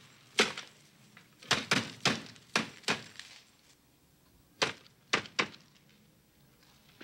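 A desk telephone being handled and dialed: a run of sharp plastic clacks, irregularly spaced in two clusters.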